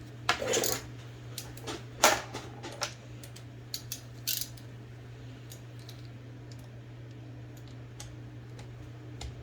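Metal clinks and clicks of a wrench and small parts being worked on an IBM Selectric II typewriter's mechanism. There are several sharp clinks in the first four seconds or so, then only a few faint ticks, over a steady low hum.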